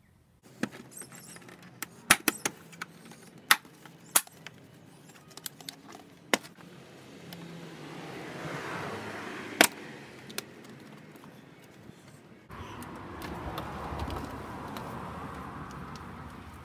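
A Toyota Camry's plastic interior trim being pried off by hand: a run of sharp clicks and snaps as the kick panel's clips let go. About 12 s in, a steadier rustle starts as the rubber door seal is pulled off its flange.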